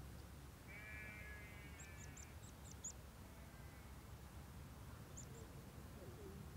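Faint open-field ambience with distant animal calls. A short harsh call comes about a second in, then a quick run of high, thin chirps from a small bird, with one more chirp a few seconds later.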